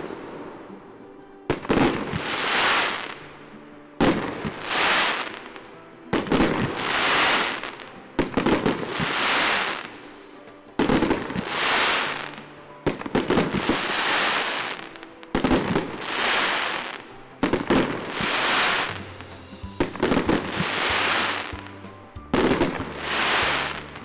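Fireworks going off in a steady series, about one every two seconds, each a sharp crack followed by a hissing crackle that fades away. Music plays faintly underneath.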